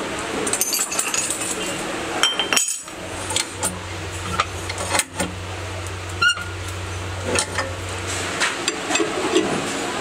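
Steel tools and parts of a screw-clamp fixture clinking and knocking against each other as the fixture is handled, in separate sharp strikes with a short ring, about one a second. A steady low hum sounds under them through the middle.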